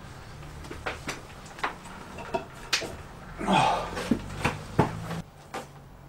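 Handling noises from skinning a hanging fallow deer carcass: scattered knocks and clicks. About three and a half seconds in comes a short rasping noise, the loudest sound here, with a faint steady low hum underneath.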